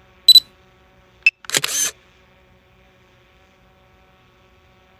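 DJI flight app's camera sounds through the phone: a short high beep a quarter second in, then a tick and the shutter-click sound about a second and a half in as the drone starts a 2-second night exposure. After that only a faint steady background remains.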